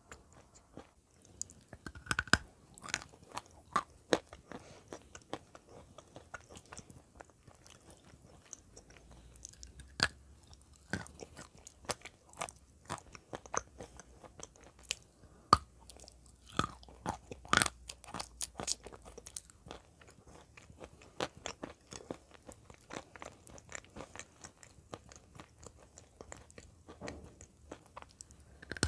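Close-up crunching and chewing of chunks of white clay coated in grey clay: irregular crisp bites and crackles, with a few much louder crunches scattered through.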